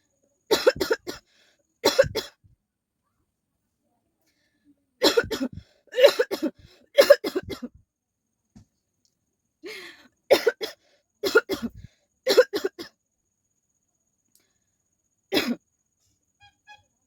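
A woman coughing in repeated fits: about ten short bouts of one to four harsh coughs, separated by silent pauses of one to three seconds.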